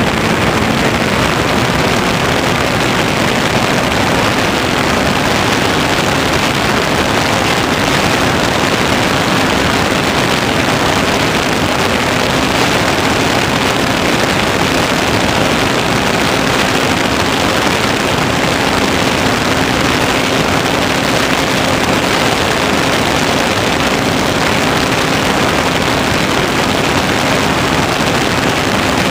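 Loud, steady rush of airflow over the onboard camera's microphone on a flying Easy Glider Pro RC motor glider, with a faint steady hum underneath.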